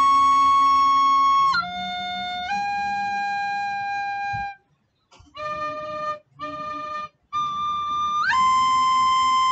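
A solo recorder playing a slow hymn melody in long held notes, with a short breath pause about halfway through and a few shorter notes after it.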